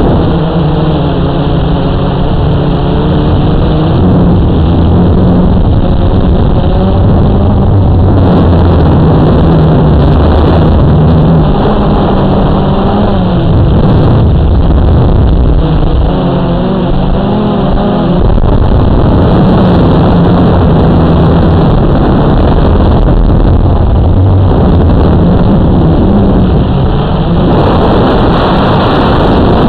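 Quadcopter's four brushless electric motors and propellers, heard through the onboard camera: a loud, continuous hum whose pitch rises and falls as the throttle changes, with a rushing hiss joining near the end.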